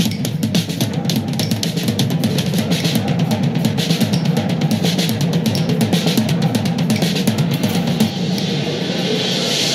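Background music: a fast, busy drum-kit passage with dense, rapid strokes.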